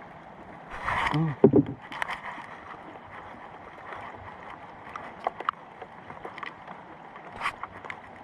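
Steady rain noise with scattered sharp drip-like clicks. A brief, louder voice-like sound comes about a second in.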